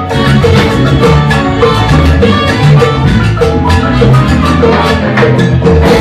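Salsa band music: a rhythmic instrumental passage with quick percussion strokes and a repeating bass line, stopping on a big hit at the end.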